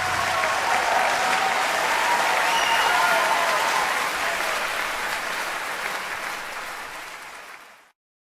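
Audience applauding, with a few faint shouts among the clapping, fading away and cutting off shortly before the end.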